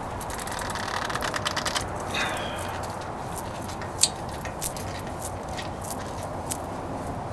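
Ratchet wrench clicking rapidly for about a second and a half, then a few single sharp clicks about every half-second, as the nut holding the anti-lock brake sensor cable is undone.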